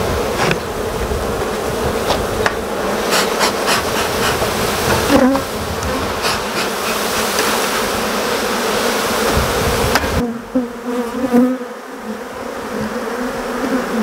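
Africanized honey bees buzzing loudly around an opened hive as the boxes are taken apart, with a few sharp knocks of the wooden hive boxes being handled. About ten seconds in the sound changes abruptly and the buzz goes on thinner and steadier.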